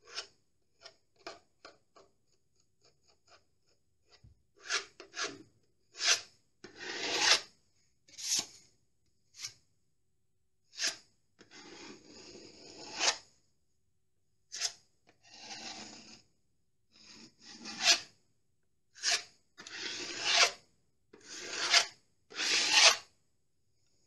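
Metal filling knife scraping over a plaster wall around a socket box, pressing filler into the gaps and wiping the excess off the surface. It begins with light taps and short strokes, then turns to longer, louder scraping strokes from about four seconds in.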